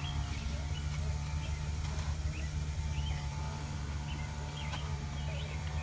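Outdoor background: a steady low hum with small birds chirping now and then, and a couple of faint clicks.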